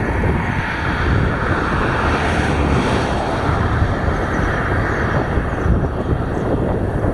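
Steady low rumbling, rushing noise of wind buffeting the microphone.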